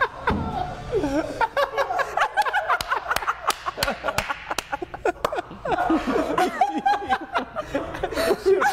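Several people laughing hard and unable to stop, in fits of snickering and chuckling with quick breathy bursts.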